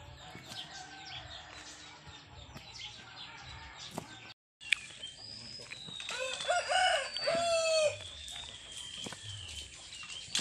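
A rooster crows once, about two seconds long, starting about six seconds in. Under it, faint taps of a knife cutting boiled pork on a wooden chopping board, with small birds chirping.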